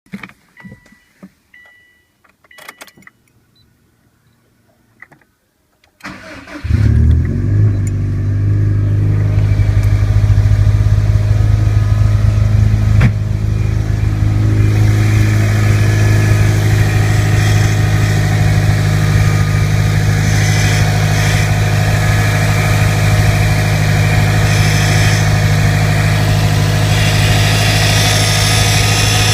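Subaru Impreza GDB's turbocharged flat-four cold-started: a few clicks and short tones, then the engine cranks and catches about six seconds in and settles into a steady idle. Over the idle runs the abnormal noise of a faulty power steering pump, a known Impreza fault that fades once the car has been driven a while.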